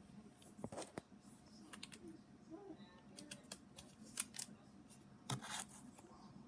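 Comic books in plastic sleeves being handled: faint, irregular crinkles and taps, the loudest clusters about a second in, around three to four seconds in, and near the end.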